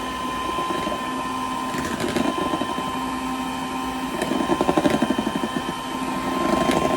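Electric hand mixer running steadily, whipping egg whites in a bowl, with a rapid fluttering rattle in the middle.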